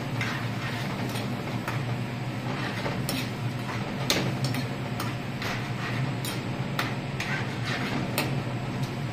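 Long-handled metal spoon stirring thick curry in a stainless frying pan, clinking and scraping against the pan in irregular clicks about once or twice a second, over a steady low hum.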